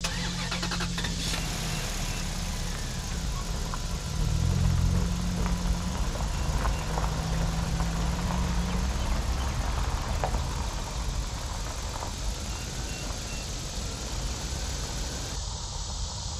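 A vehicle engine running steadily, a low hum with a hiss over it.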